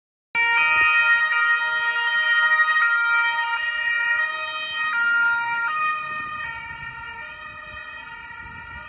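Police car siren of Carabinieri patrol cars, its pitch stepping back and forth between notes. It starts abruptly, fades from about two-thirds of the way through, and cuts off suddenly.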